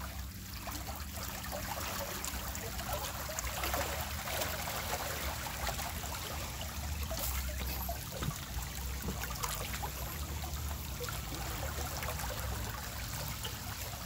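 Seawater flowing steadily along a tidal canal, a continuous rushing trickle with a low rumble underneath.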